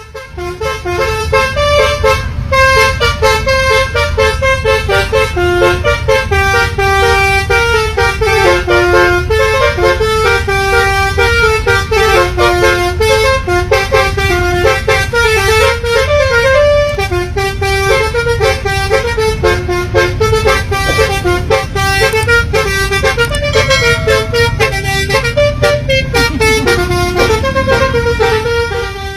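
Basuri multi-tone musical air horn on a sand truck playing a quick stepping melody, note after note, over a low rumble from the truck.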